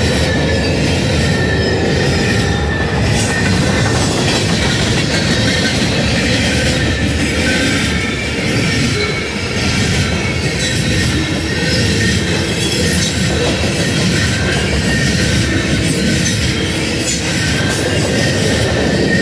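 CSX freight train of covered hopper cars rolling past close by: a steady loud rumble of steel wheels on the rails, with thin high squealing tones from the wheels coming and going.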